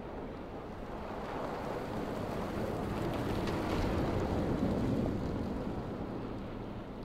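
Camouflaged BMW 7 Series prototype driving past over snow, a rushing engine-and-tyre noise that swells to a peak about four seconds in and then fades away.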